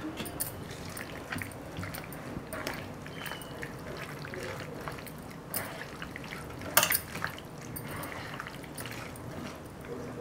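A hand squishing chicken pieces and chopped bell peppers through a thick, wet yogurt-spice marinade, giving soft squelches and smacks. There are a couple of sharper clicks, about five and a half and seven seconds in.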